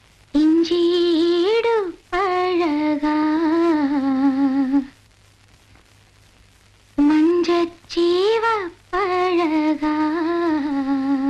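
A single voice humming a slow, wavering melody without accompaniment, in two phrases of about four seconds each with a pause of about two seconds between them.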